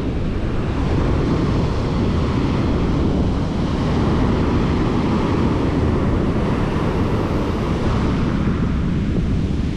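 Shallow surf washing in foam over wet sand, with wind buffeting the microphone, a steady rushing noise.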